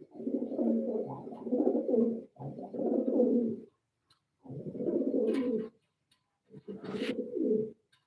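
Domestic pigeon cooing in four bouts, each one to two seconds long.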